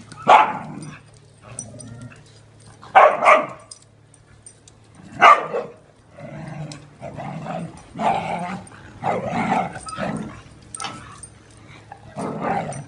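Several dogs play-fighting and barking. There are a few sharp, loud barks in the first half, then a run of lower, longer vocalizing.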